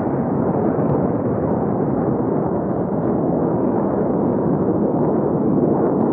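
Jet aircraft engine noise: a steady, heavy rumble with no clear pitch that holds even throughout.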